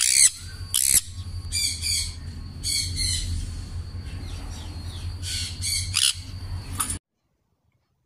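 Sun conures screeching: repeated loud, harsh squawks, several in quick succession, over a steady low hum, until the sound cuts off suddenly about seven seconds in.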